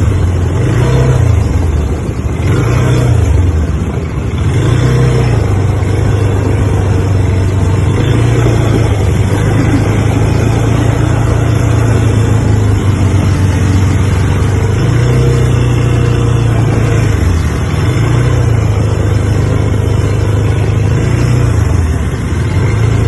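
ATV engine running while riding over a dirt trail, heard close from the handlebars. Its note rises and falls several times as the throttle opens and eases, over a steady rush of wind and tyre noise.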